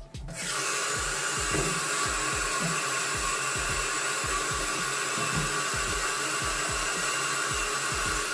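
Tap water running from a sink faucet into a plastic jar, a steady rushing hiss that starts about half a second in. A low, even beat from background music runs underneath.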